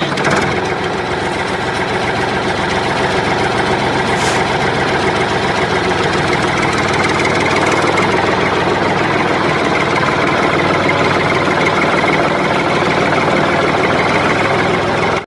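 An engine running steadily at idle, its pitch unchanging throughout.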